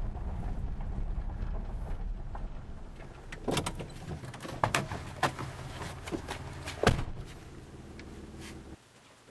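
A low engine rumble that fades out, followed by several sharp clicks and knocks, the loudest about two-thirds of the way in, over a fainter steady hum that cuts off near the end.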